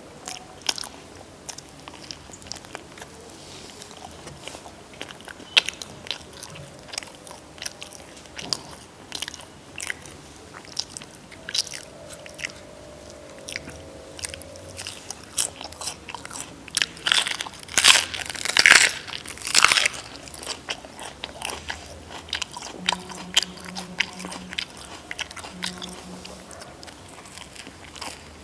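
A person biting and chewing crunchy food close to the microphone: irregular sharp crunches throughout, loudest in a cluster about two-thirds of the way through.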